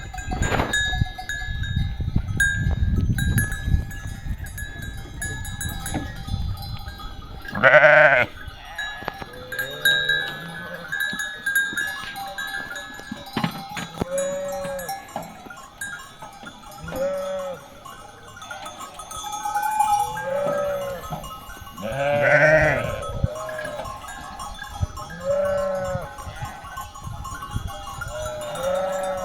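Flock of sheep bleating again and again, calls coming every few seconds with two louder ones, against a faint steady ringing of animal bells. For the first several seconds there is a low rumbling noise.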